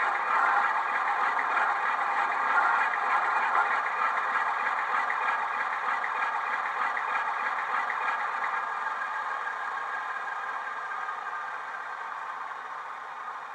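Model Class 47 diesel locomotive's DCC sound decoder playing the Sulzer engine sound through two small tablet speakers, the locomotive standing still with the engine running steadily. The sound grows gradually quieter over the whole stretch.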